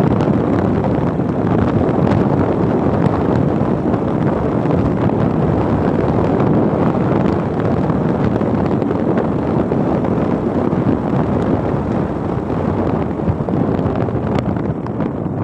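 Steady wind rush buffeting the microphone on a moving motorcycle, with the motorcycle's engine running underneath.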